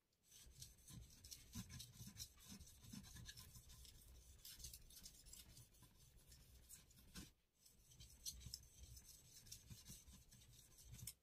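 Faint scraping strokes of a deba knife blade rubbed back and forth on a wet Iwatani natural whetstone, used with water only and no slurry, polishing the bevel; the strokes pause briefly about seven seconds in.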